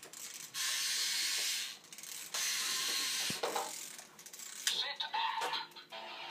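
Plastic toy transformation gadget being handled and worked by hand, its parts ratcheting and scraping in two long stretches.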